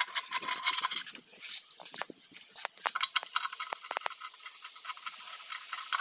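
Hand ratchet and socket clicking in short, irregular runs while turning the bolts of the automatic transmission's oil filter, with metal tool taps against the valve body.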